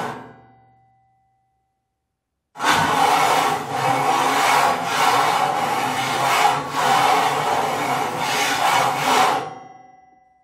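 Heavy steel sheet sliding and scraping across a metal surface: a grating scrape with a steady metallic ringing tone under it. The tail of an earlier slide rings away in the first second. After a short silence a new slide starts suddenly, runs for about seven seconds with a few brief dips, and fades out with a lingering ring.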